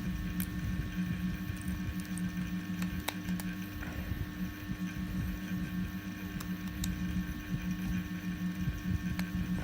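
Sharp, isolated clicks of 3D-print plastic support pieces being snapped or clipped off with pliers or a cutter, a few seconds apart, over a steady low hum.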